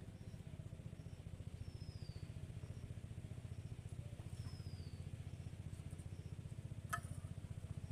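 A small engine running steadily with a low, fast, even throb. A bird gives a short falling whistle twice, and there is a single sharp click near the end.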